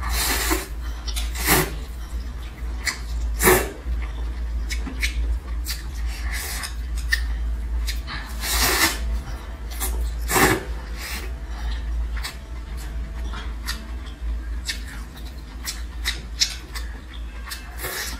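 Close-miked eating sounds: a person slurping vermicelli noodles off steamed mussel shells and chewing. About five loud sucking slurps are spread through, between many small wet mouth clicks, over a steady low hum.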